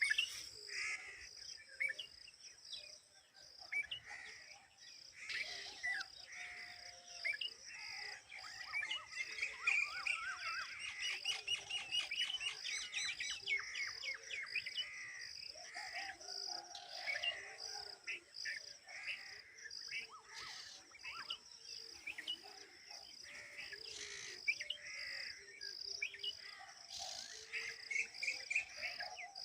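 Birds chirping and calling again and again, with a quick run of twittering trills partway through, over a steady pulsing insect drone.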